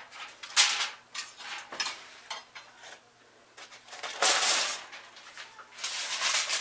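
Aluminium foil crinkling and rustling in several short bursts as it is peeled off the rim of a cooking pot.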